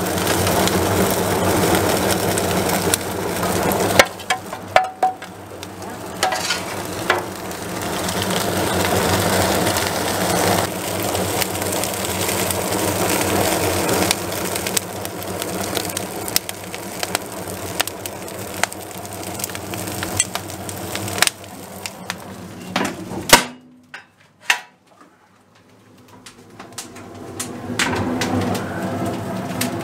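Freshly lit coal and wood fire crackling in the open firebox of a steam tug's coal-fired boiler, drawn hard by the draft of the already hot boiler, over a steady low hum. About four seconds in and again near the end there is a sharp knock; after the second the sound drops almost to nothing for a few seconds, then comes back.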